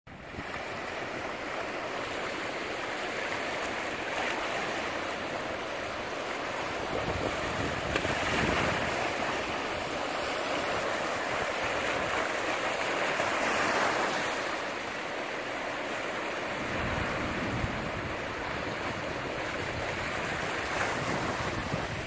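Sea waves breaking and washing over a rocky shore: a continuous rush of surf that swells louder every few seconds. In the last few seconds wind rumbles on the microphone.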